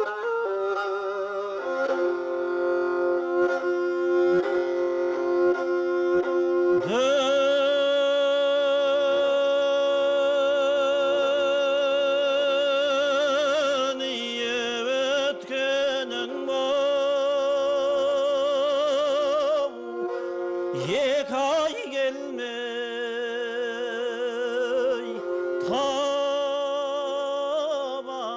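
Kobyz, the Kazakh horsehair-strung bowed fiddle, playing a slow melody of long held notes with vibrato over a held lower note, briefly breaking into gliding notes about two-thirds of the way through.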